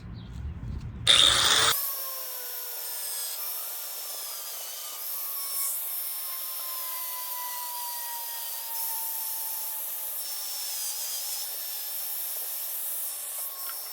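Cutoff wheel cutting through a plastic rear diffuser tab. A loud burst about a second in, then a steady high grinding whine whose pitch wavers and slowly sags as the wheel bites, stopping just before the end.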